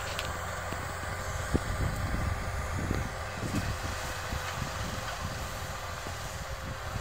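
Kubota tractor's diesel engine running steadily under load as it pulls a plough through dry, cloddy soil, with irregular low knocks over the drone.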